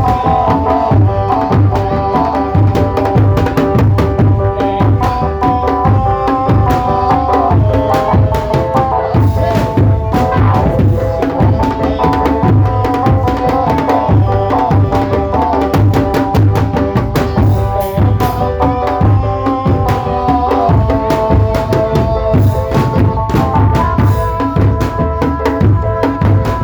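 Drum band music played loud and without a break: fast, steady drumming with a melody of held notes over it.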